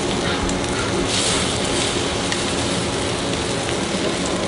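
Bacon sizzling and crackling on a hot flat-top griddle as a bacon-wrapped burrito fries, a steady hiss with small pops. A steady low hum runs underneath.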